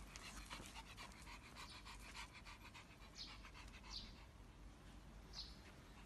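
A pug panting faintly in quick, even breaths, then three short, sharper huffs about three, four and five and a half seconds in.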